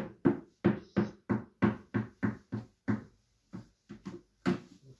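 A rhythmic series of soft thuds, about three a second, thinning out to a few irregular ones after about three seconds.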